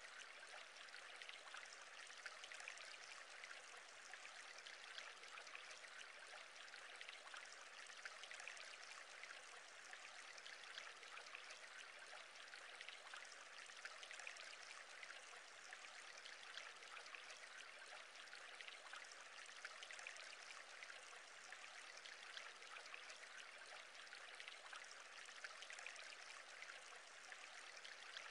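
Faint, steady fizz and bubbling of a stream of air bubbles rising through an aquarium from an aerator.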